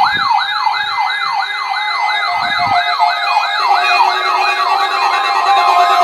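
Weather radio receiver alarm going off for the NOAA Weather Radio warning alarm test: a siren-like rising wail repeating about three times a second. A steady high tone joins near the end.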